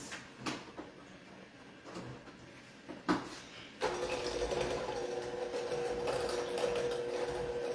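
Electric hand mixer switched on about four seconds in, then running with a steady hum as its beaters mix a wet batter in a bowl. A couple of light knocks come before it starts.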